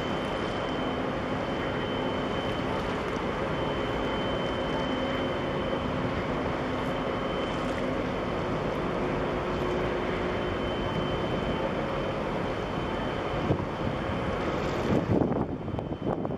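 Steady drone of ship engines and machinery over the water, with a thin high whine held through it. Near the end, wind gusts buffet the microphone.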